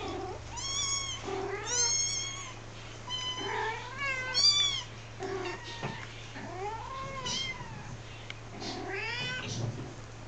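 A mother cat and her young kittens calling to each other: about six short, high mews with a rise-and-fall in pitch, with lower, shorter calls among them.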